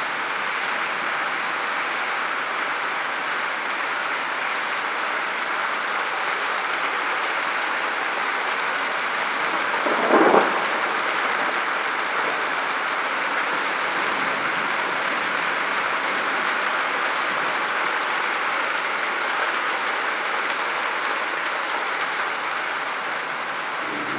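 Storm of hail and heavy rain pelting down in a steady hiss. About ten seconds in comes one brief, loud bang.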